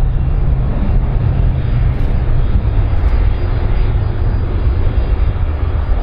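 Large airplane's engines running with a steady, heavy low rumble.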